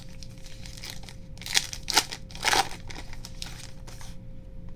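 A plastic trading-card pack wrapper being torn open and crinkled in the hands, with the loudest sharp rips about one and a half to two and a half seconds in.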